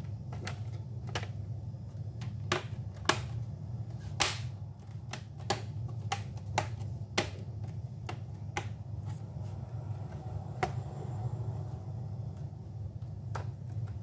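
Plastic bottom cover of a Lenovo V145 laptop being pressed onto the chassis, its retaining clips snapping into place in a string of sharp, irregular clicks. Most of the clicks come in the first half, with a few spaced out later, over a steady low hum.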